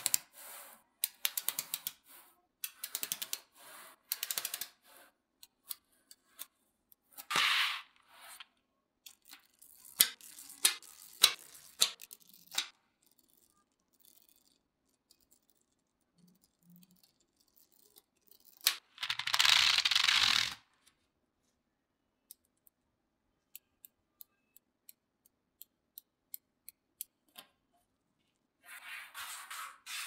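Small magnetic balls clicking and rattling as they snap together and are pushed across a hard surface by a finger. Bursts of rapid clicks come with single clicks between them. The loudest is a longer clattering rush about two-thirds of the way through.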